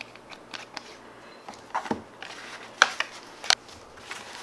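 A few sharp plastic clicks and taps, the loudest about three seconds in, as a clear plastic tube of instant snow powder is handled and emptied over a plastic tray.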